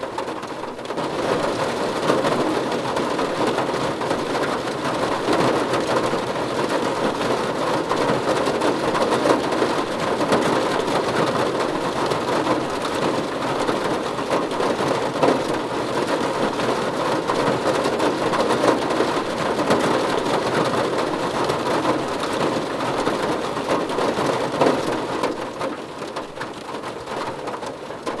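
Steady, dense rain falling on a surface: an even hiss that swells louder about a second in and eases off again near the end.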